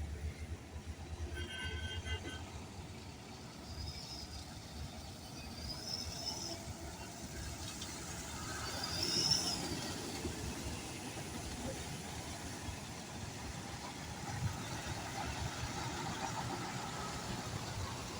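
Road traffic: motor vehicles running and passing in a steady rumble, with a few short higher tones over it.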